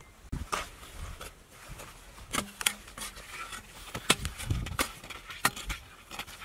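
Small metal digging tool chopping and scraping into hard, dry cracked mud, with irregular sharp knocks and scrapes as clods break and tumble.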